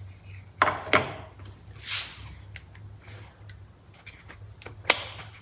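Handling noises of steering-wheel parts and tools: a few sharp clicks and knocks, the loudest about a second in and near the end, with small ticks between, over a low steady hum.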